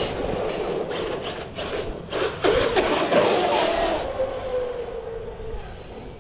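Traxxas Sledge 1/8-scale electric RC truck driving on asphalt: its brushless motor whines, the pitch rising and falling with the throttle, with short bursts of tyre noise between about one and four seconds in. The whine then fades as the truck drives off into the distance.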